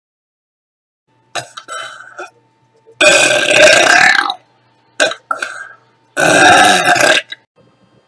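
A woman belching deliberately and loudly: two long burps of about a second each, the second near the end, with a few short vocal sounds before and between them.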